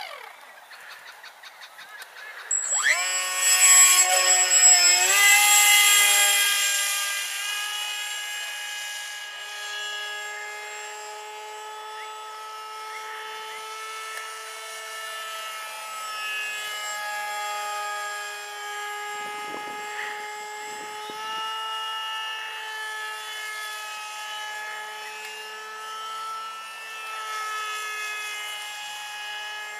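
A foam RC F-22 jet's electric motor and propeller spin up sharply about two and a half seconds in at launch, a loud whine. It then fades as the plane climbs away, and the pitch rises and falls with throttle changes.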